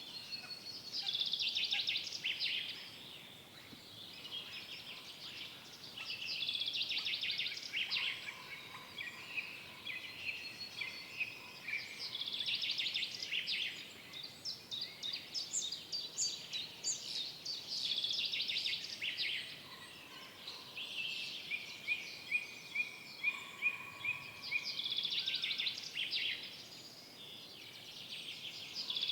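Woodland songbirds singing: a loud song phrase of rapid notes comes back every five or six seconds, with other birds adding runs of sharp, quickly repeated notes and a short series of even whistled notes in between, over a faint steady hiss.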